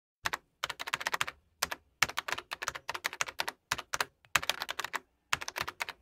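Keyboard typing sound effect: runs of fast keystroke clicks broken by short pauses.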